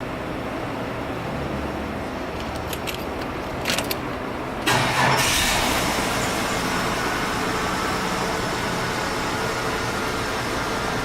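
Holden VT Commodore's 3.8 V6 engine starting about halfway through, a sudden loud catch that settles into a steady idle. A few light clicks come shortly before it.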